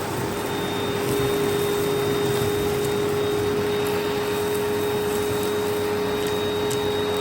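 Eureka PowerSpeed vacuum cleaner running with its crevice tool fitted: a steady rush of air with a constant mid-pitched motor whine, getting slightly louder about a second in.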